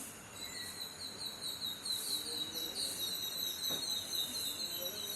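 A bird singing a long, fast trill of short, evenly repeated high chirps, about six a second, over a steady outdoor background hiss.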